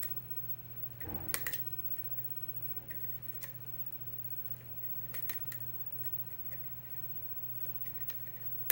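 Lock pick working the pin stack of a six-pin LSDA kik lock cylinder: a few faint, scattered clicks over a steady low hum, then one sharper click near the end as the core turns open.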